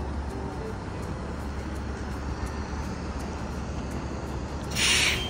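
Steady low wind rumble and road and traffic noise, with a short loud hiss near the end.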